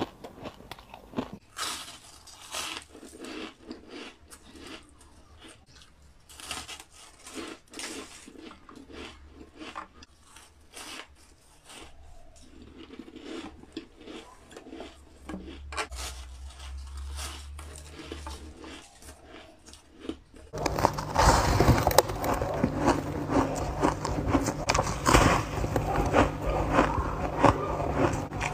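A person biting and chewing soft white snowflake ice close to the microphone, with many quick crunches. It becomes much louder and denser for the last third or so.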